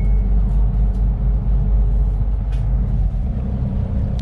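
Fishing boat's engine running with a steady low rumble and a faint hum above it.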